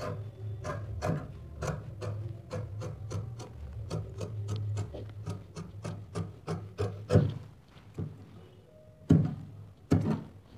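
Large tailoring scissors cutting cotton dress fabric on a wooden cutting table: a steady run of crisp snips, about three a second, then a few louder knocks near the end as the cut piece is handled.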